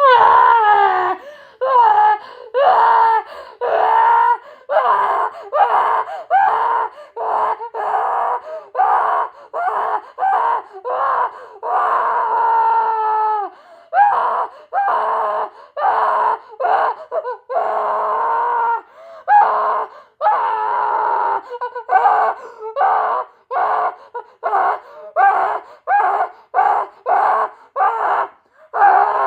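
A boy screaming and wailing in a tantrum: a long run of short, pitched cries with pitch sliding up and down, one or two a second, broken by a few longer drawn-out wails.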